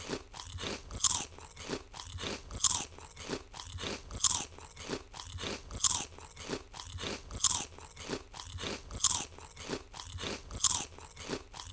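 Fast, continuous crunching and chewing of food being eaten in big bites, in an even rhythm with a louder crunch about every second and a half and quicker small crunches between.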